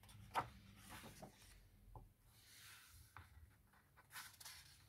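Faint paper rustling as hands handle a hardcover picture book and turn a page, with a soft click about half a second in and a brief swish of the page a little after four seconds.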